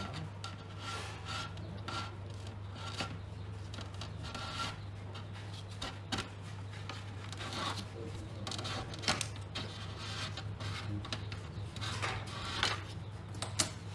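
Hand scraping and rubbing on hard, rusty parts in irregular strokes, with a few sharp clicks, over a steady low hum.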